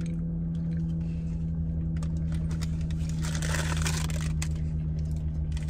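Steady low hum of a car engine idling, heard inside the cabin, with small crunches and clicks of chewing a fried cheese curd. A brief rustle comes a little past three seconds in.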